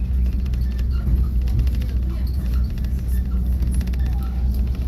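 Riding noise of a moving passenger train: a steady low rumble with quick, irregular rattles and clicks.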